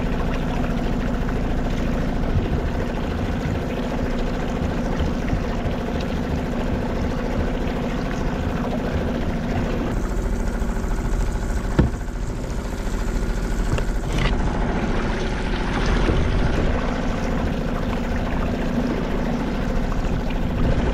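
Steady boat-engine drone with water sloshing and trickling around a kayak on the sea; a single sharp knock about twelve seconds in.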